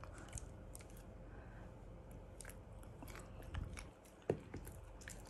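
Shiba Inu chewing a treat: faint crunching bites, with a louder knock and click about four seconds in.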